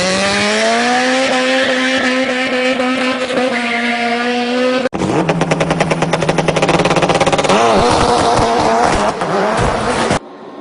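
Motor vehicle engine revving, its pitch rising and then holding. After an abrupt cut, an engine runs with a fast, even pulsing, and it cuts off again near the end.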